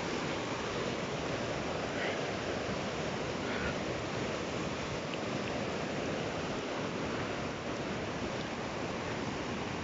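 Small waves on a reservoir washing against the shore in a steady rush of water noise, the water choppy rather than calm.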